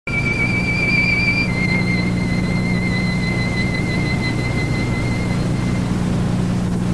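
A single high, wavering whistle-like tone that steps down in pitch after about a second and a half and fades out, over a steady low hum.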